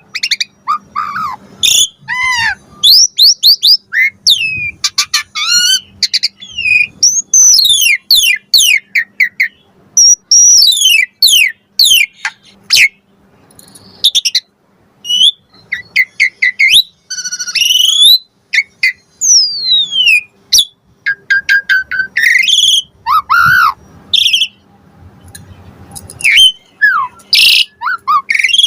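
Asian pied starling (jalak suren) singing a long, varied song of quick whistles, chirps, rapid trills and sliding notes in short phrases with brief pauses between them.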